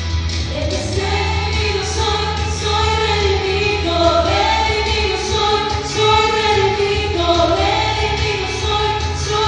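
A woman singing through a PA system in a large hall, holding long notes that glide from one pitch to the next, over a steady low hum.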